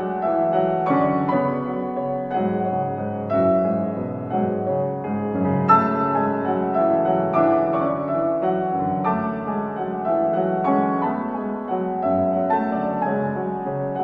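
Piano music, with notes struck one after another in a steady, unhurried flow.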